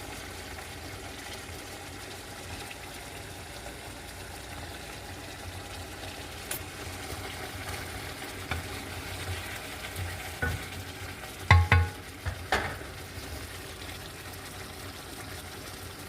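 Chicken kebabs sizzling steadily in hot frying oil, with a few sharp knocks of a utensil against the pan about two-thirds of the way in.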